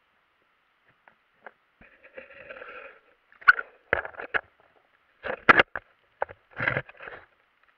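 Irregular clicks, knocks and short rustles heard underwater, as from a submerged camera being shifted and bumped. There is a brief rustling stretch around two seconds in, then sharper knocks, the loudest about five and a half seconds in.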